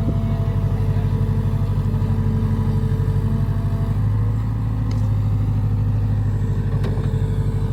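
Heavy diesel engine running steadily with a rapid, even throb. It strengthens briefly a few seconds in, and a couple of faint clicks sound over it.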